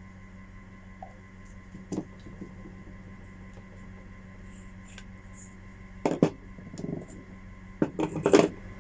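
Parts and tools being handled during a repair of a Makita HR2470 rotary hammer: scattered knocks and clicks, with a cluster about six seconds in and the loudest near the end, over a steady low hum.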